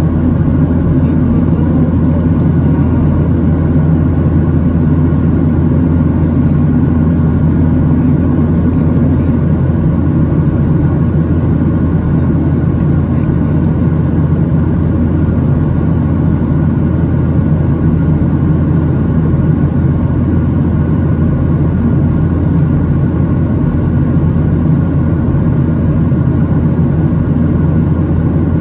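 Steady cabin drone of a jet airliner in cruise, heard inside the cabin beside the engine: an even, constant rumble with a few steady hums in it.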